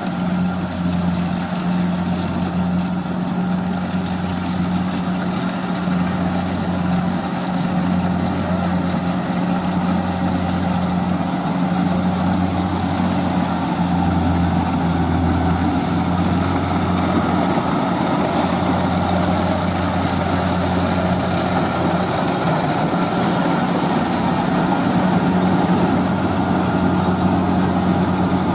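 Kubota DC-70 rice combine harvester's diesel engine running steadily as the machine cuts rice, a constant loud drone with a deep hum, along with the clatter of its threshing and cutting works.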